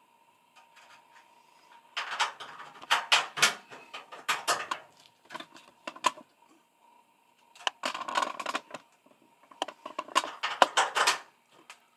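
Clicking and rattling of plastic fluorescent lamp holders and wires being handled in a sheet-metal fixture, as the blue ballast wires are pushed into the holders' push-in connectors. The sound comes in several clusters of quick clicks, starting about two seconds in.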